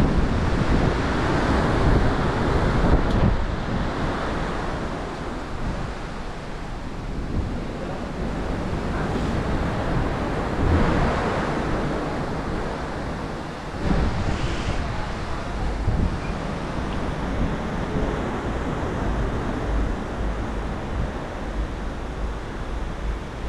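Wind buffeting the microphone over the rushing wash of the sea alongside a cruise ship under way, swelling and easing every few seconds.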